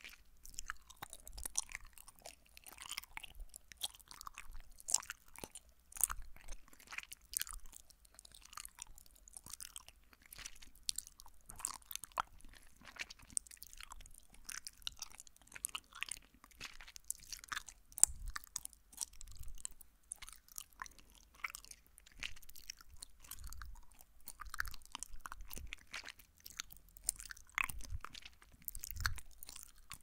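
Gummy jelly candy being chewed right at a binaural microphone: a dense, irregular run of small sharp clicks and squishes of close-up mouth sounds.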